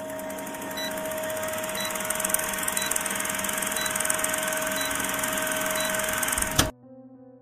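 Old film-projector sound effect for a countdown leader: a steady mechanical whir and rapid clatter with a constant hum, and a short tick about once a second. It cuts off suddenly with a click near the end.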